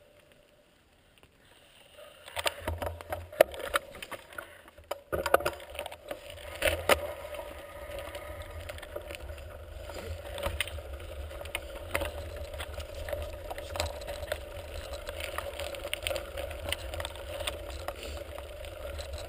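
A mountain bike riding over a loose gravel track, starting about two seconds in: tyres on stones and the bike rattling over a steady low rumble, with several sharp knocks over bumps in the first few seconds.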